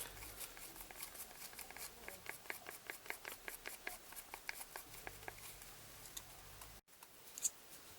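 Faint, irregular light clicks and taps of small objects being handled by hand on a workbench, with the sound cutting out completely for a moment about 7 seconds in.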